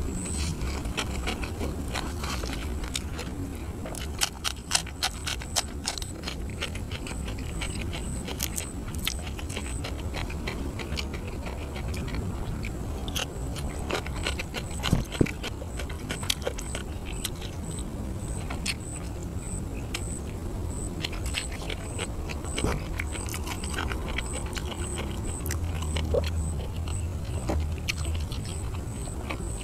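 Close-miked chewing of grilled catfish, a run of crisp clicks and crunches with some louder clusters, as the fish is eaten and torn apart by hand.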